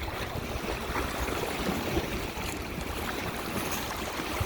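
Lake Michigan waves washing steadily against the shore and pier, with wind rumbling on the phone's microphone.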